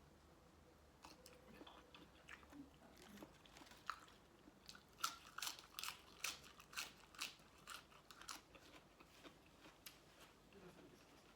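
Close-up crunchy chewing of a mouthful of Thai seafood papaya salad with shrimp and squid: crisp crunches come about two a second and are loudest in the middle, then tail off.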